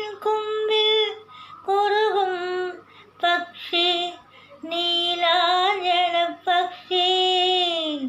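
A woman singing a Malayalam film song solo, with no accompaniment, in short phrases of held notes that waver slightly on the longer ones.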